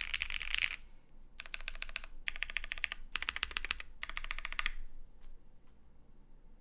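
Custom Vega mechanical keyboard with lubed Holy Panda tactile switches on a polycarbonate plate and GMK keycaps, being typed on in quick runs of keystrokes. The typing stops a little under five seconds in, followed by two single keypresses.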